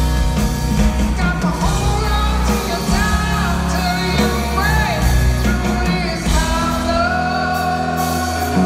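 Rock band playing live: a male lead singer's voice over guitars, bass and drums, recorded from among the audience in the hall.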